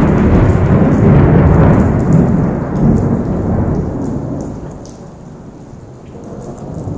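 A long roll of thunder that rumbles loudly and then fades away over about five seconds, over the steady hiss of heavy rain.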